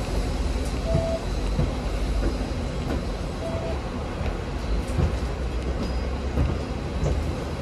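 Hong Kong Tramways VVVF tram running on its rails, a steady low rumble. A short beep sounds twice, about a second in and again past the three-second mark.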